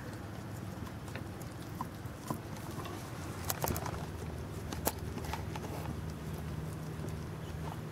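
Carolina Dog chewing and tearing at a chunk of raw meat, with a few sharp cracks and clicks of teeth on meat and bone near the middle.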